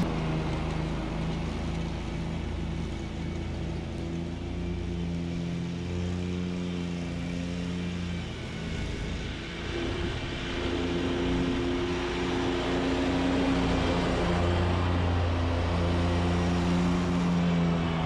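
Stand-on zero-turn lawn mower's engine running steadily while it mows. It fades a little as the mower drives off, then grows louder again from about halfway as it turns and heads back.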